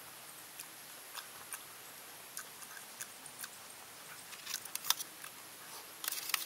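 Faint eating sounds of someone eating by hand: scattered small clicks and smacks of chewing and fingers, getting denser toward the end, over a faint steady high hiss.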